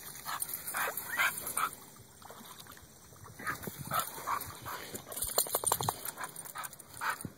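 Staffordshire bull terrier whining and giving short yips, with a quick run of rapid pulses a bit after the middle.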